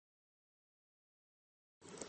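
Dead silence: the sound track is blank, with a faint hiss cutting in just before the end.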